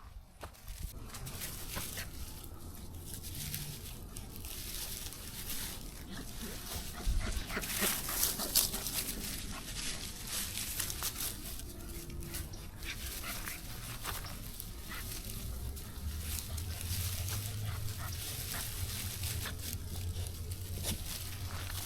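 American Bully puppies and adult dogs moving about, with rustling and a few faint short whimpers.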